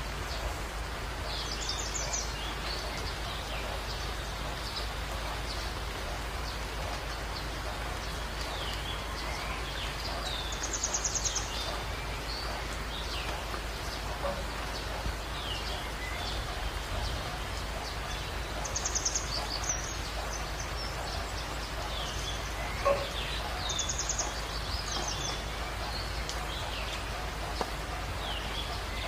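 Birds chirping, with short rapid trills every several seconds, over a steady hiss of background noise.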